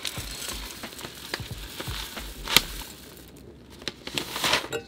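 Dry rolled oats poured from a bag into a stainless steel saucepan, a steady rattling hiss of grains for about three seconds, with one sharp knock about two and a half seconds in. A short rustle of the bag near the end.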